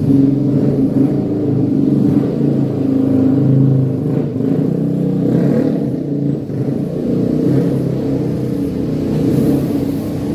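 A motor vehicle engine running steadily in the background, its pitch wavering slightly up and down.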